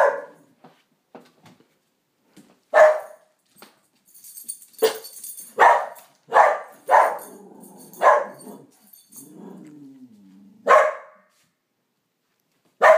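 Pharaoh hound barking in single sharp barks, about eight in all, with a quick run of four around five to seven seconds in. Between barks near the middle comes a low, drawn-out growl.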